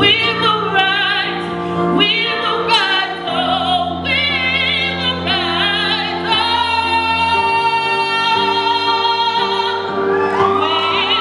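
A woman singing a slow solo into a microphone over held backing chords, her voice wavering with vibrato on the long notes. Near the end she holds and bends one long high note.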